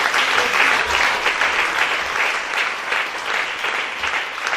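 Congregation applauding: many people clapping their hands at once, a dense patter of claps.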